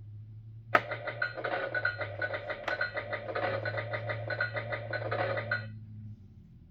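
A click as a figure is pressed into the Fisher-Price Great Adventures Magic Castle, then about five seconds of its electronic sound effect from the toy's small speaker, over a low electrical hum.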